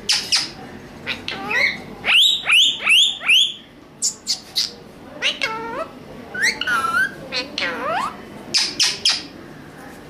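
Pet ring-necked parakeets (Indian ringneck and Alexandrine) calling: a string of harsh calls that swoop in pitch, with a quick run of four sharp, high calls about two seconds in.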